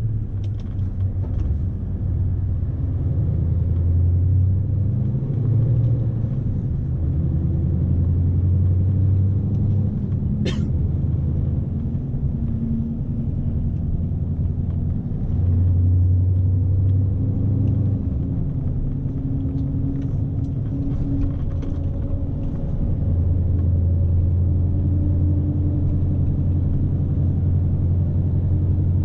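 Scania S520's V8 diesel engine rumbling inside the cab as the truck drives, its pitch shifting up and down with engine speed. A single sharp click sounds about ten and a half seconds in.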